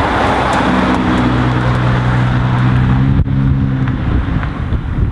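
Nissan GT-R R35's 3.8-litre twin-turbo V6 engine and exhaust running loud at fairly steady revs, with an abrupt change in the engine note about three seconds in.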